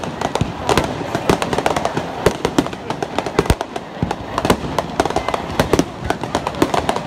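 Aerial fireworks going off: a dense, unbroken string of sharp bangs and crackling pops, many each second.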